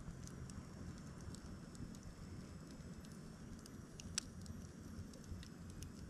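Campfire of burning wood crackling, with scattered small pops and one sharper pop about four seconds in, over a low rumble.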